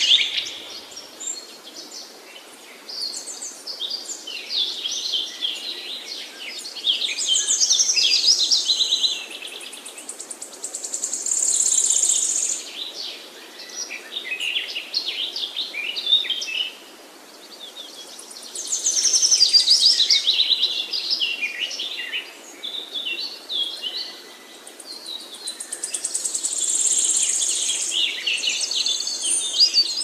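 Songbirds singing: high, rapid, varied trills and twittering phrases that keep going, growing louder for a second or two every few seconds.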